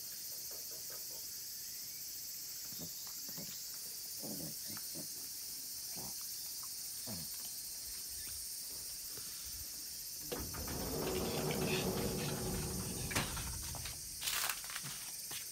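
Steady high-pitched insect chorus in the background, with faint soft scuffs. About ten seconds in, a louder rushing noise takes over for a few seconds, followed by a couple of sharp clicks.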